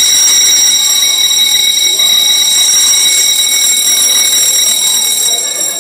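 Building fire alarm sounding the evacuation signal: a steady, loud, high-pitched electronic tone, fading near the end.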